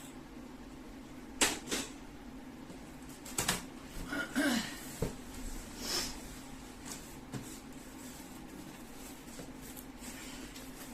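A few sharp knocks and clatters of parts and packaging being handled while a microwave oven is unpacked, the loudest about one and a half seconds in and a cluster between about three and six seconds, over a steady low hum.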